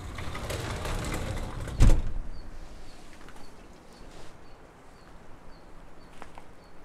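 A stretch of rushing noise that ends in one loud thump about two seconds in. After it comes quiet outdoor ambience, with a faint high chirp repeating about twice a second.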